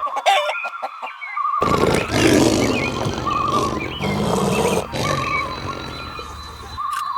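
Farm animal calls with clucking fowl, over a background of small chirps and a short warbling call that repeats about every second and a half; a louder, rougher stretch starts about a second and a half in and fades near the end.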